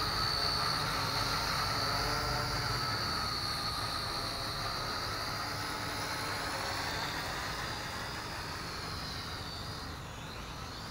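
JJRC H12C toy quadcopter's motors and propellers whining steadily, slowly fading as it flies away; the pitch dips and wavers near the end.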